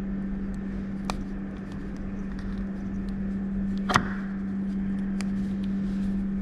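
A cutter slicing heat shrink on electric-scooter controller wiring: a faint click about a second in and a louder, sharp click about four seconds in, with a few small ticks, over a steady low hum.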